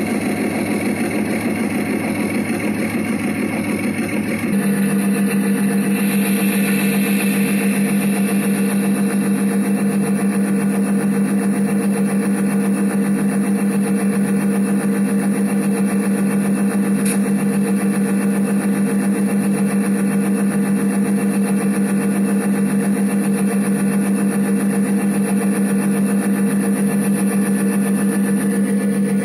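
Diesel locomotive engine sound running steadily, a constant droning hum. About four and a half seconds in it switches abruptly to a smoother, steadier engine hum that holds unchanged.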